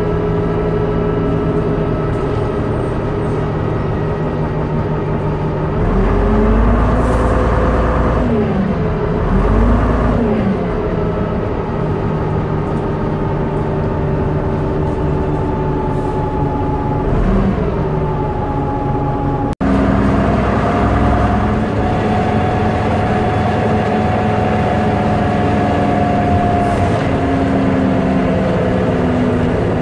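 MCW Metrobus double-decker on the move, heard from inside the passenger saloon: the engine runs with a steady whine from the driveline. About a fifth to a third of the way in, the pitch swings up and down through gear changes and the rumble grows louder. A brief dropout comes about two-thirds through.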